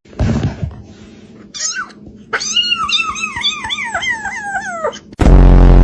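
A cat giving a quick run of short, wavering mews, then a loud, low burp near the end.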